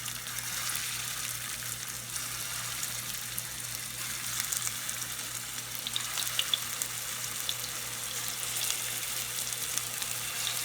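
Minced-chicken balls shallow-frying in hot oil: a steady sizzle with scattered small crackles.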